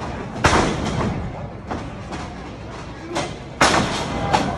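Wrestling ring impacts over a crowd haze: two loud, sharp slams about three seconds apart, the sound of bodies hitting the ring canvas, with a few smaller knocks between them.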